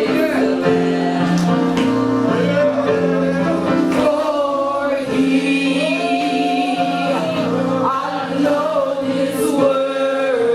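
Gospel music: singing over steady, held instrumental chords.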